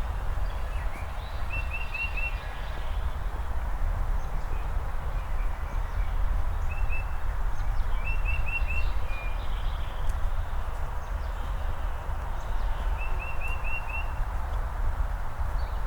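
A songbird singing a short phrase of four or five quick, high notes, repeated several times, over a steady low outdoor rumble.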